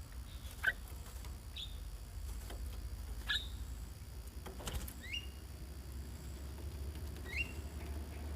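Caged bulbuls giving about five short, high chirps spaced a second or two apart, some with a quick pitch sweep, with a few sharp clicks of movement among them, one about halfway through.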